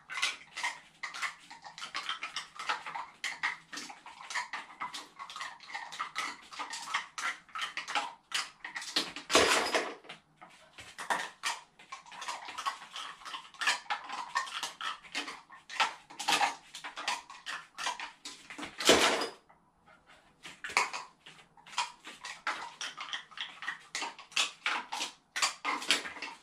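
Dog nosing and mouthing a pink plastic piggy bank and dropping plastic coin discs into it, making an irregular run of clicks, clatters and rattles of hard plastic. There are two louder clatters, about nine and nineteen seconds in.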